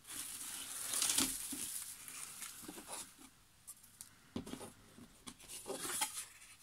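Hands rustling through dry shredded wood-wool packing in a cardboard box, then a few light knocks and scrapes as the flat cut-out kit pieces beneath are shifted.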